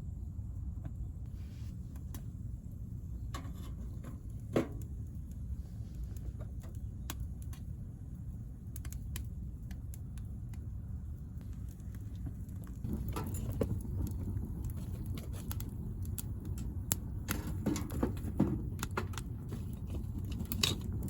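Wood fire burning in a small camping wood stove, with scattered sharp crackles and clicks that come thicker in the second half, over a steady low rumble.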